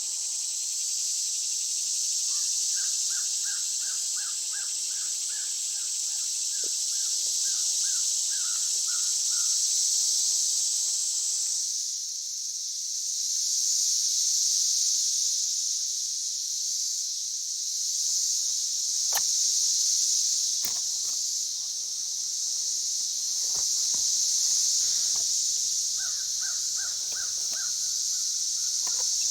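Summer forest ambience: a steady high drone of insects throughout, with a bird giving a run of rapidly repeated call notes, once early on and again near the end. A few sharp clicks and soft knocks come in the second half.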